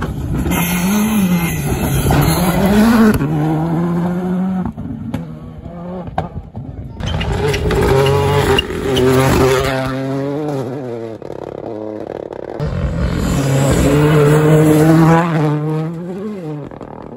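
Rally cars at full throttle on a gravel stage, one after another. The engines rev hard, their pitch climbing and dropping with each gear change and lift as the cars pass.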